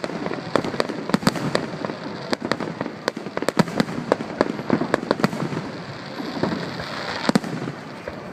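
Aerial fireworks going off: a rapid barrage of sharp bangs and cracks over a dense crackling, thinning a little near the end.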